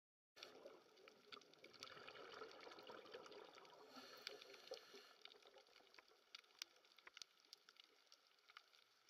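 Faint underwater water sound: a soft watery hiss with scattered small clicks and crackles, busiest in the first few seconds.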